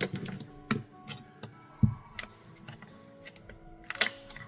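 Metal pry tool and pick clicking and scraping against an iPhone 13's frame, a handful of sharp ticks and taps, the loudest near the end, over soft background music.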